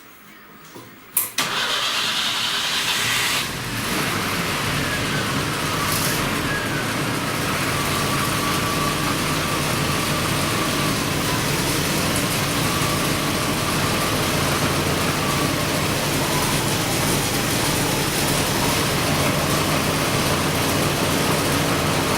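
The four-cylinder engine of a GAZ Volga with a freshly rebuilt K151 carburetor is cranked by the starter for about two seconds, catches, and settles into a steady idle. The idle is low enough that raising it to about 1100 rpm is suggested.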